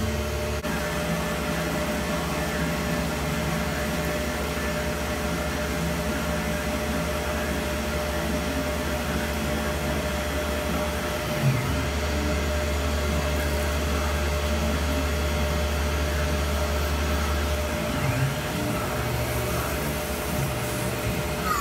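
Tormach 1100 CNC mill's spindle running with an end mill cutting a metal block under flood coolant: a steady machine whir with a held tone and the hiss of coolant spray. A brief knock about halfway in, after which the low hum is louder until it drops back near the end.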